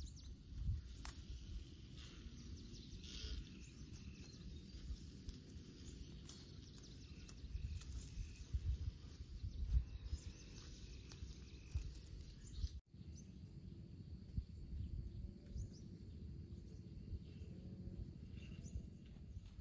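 Outdoor background noise with a steady low rumble and scattered light clicks and knocks, which change abruptly about two-thirds of the way through.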